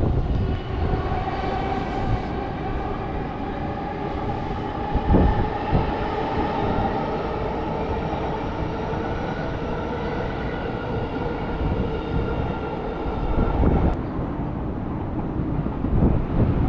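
Electric train running past, its motors giving a whine of several tones that rises slightly over the first few seconds, holds, then fades near the end, over a steady low rumble. A few low thumps stand out, one about five seconds in and one near the end.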